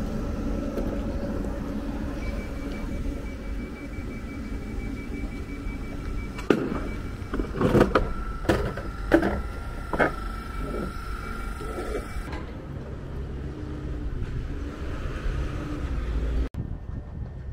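GWR Class 387 electric train standing at a station platform: a steady low hum with a steady high tone, and several sharp knocks and clatters about halfway through. The sound changes abruptly twice near the end.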